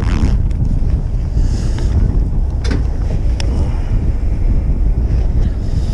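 Wind buffeting the microphone over the steady low rumble of a charter fishing boat's engine, with a couple of faint clicks near the middle.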